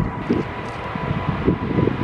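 Jet engines of a KLM Boeing 777 running as it taxis, with a steady whine over a low engine noise. Gusty wind rumbles on the microphone.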